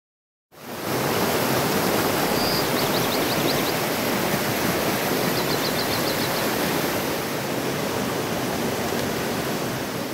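Creek water rushing steadily over rocks, starting about half a second in. Two brief runs of high trills sound over it, about three and six seconds in.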